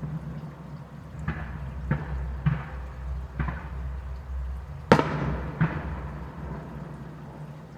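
Fireworks bursting: a run of sharp bangs, each with a short fading echo, coming every half second to second. The loudest is about five seconds in, and the bursts thin out after that.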